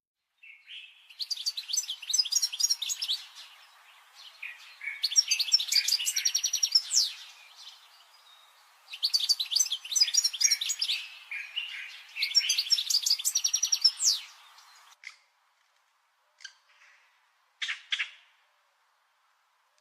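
A songbird singing in four bouts of rapid, chirping trills, each about two seconds long, followed by a few short single chirps near the end.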